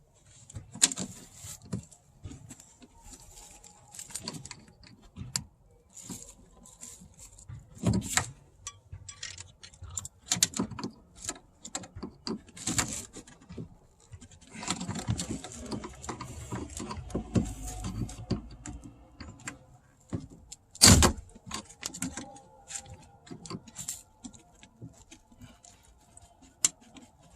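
Scattered clicks, taps and rattles of hands working loose a car door's speaker and plastic trim. About halfway through there is a stretch of scraping and rustling, and a sharp knock follows shortly after.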